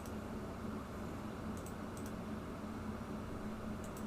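A few faint, scattered computer keyboard key clicks, in small groups, over a steady low hum and hiss.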